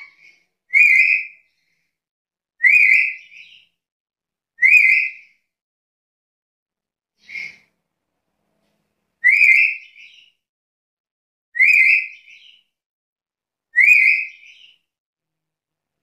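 Black-capped lory giving loud, short whistled calls, seven in all, about two seconds apart, each a quick upward sweep; the fourth call is fainter.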